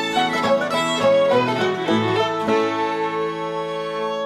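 Old-time string band of two fiddles, guitar, banjo and mandolin playing the closing bars of a fiddle tune. The quick notes stop about two-thirds of the way in, and the band holds a final chord that rings out.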